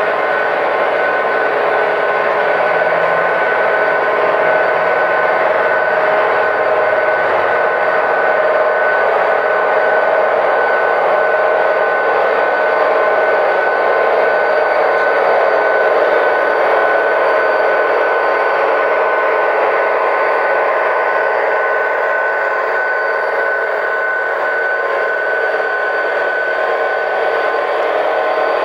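Sound decoders (SoundTraxx Tsunami) in model diesel locomotives playing a steady diesel engine drone with a high, even whine through their small onboard speakers as the train rolls past.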